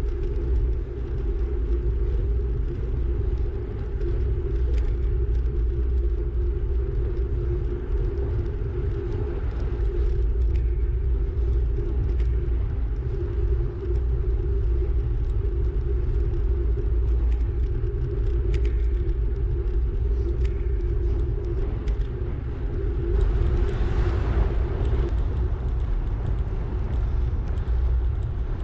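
Wind buffeting the microphone of a camera on a moving bicycle: a steady low rumble with a few faint ticks. About 23 seconds in, a brief swell of hissing noise rises and fades.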